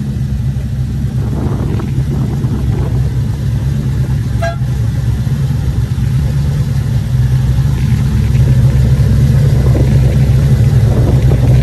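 Low, steady engine rumble of trucks running, growing louder about seven seconds in. A short horn toot sounds about four and a half seconds in.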